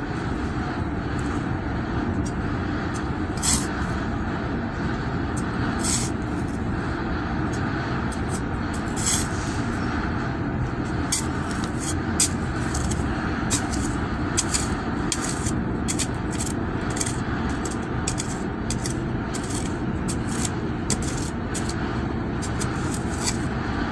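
Shovel blade scraping and chopping into soil again and again, in short irregular strokes, over steady background road traffic.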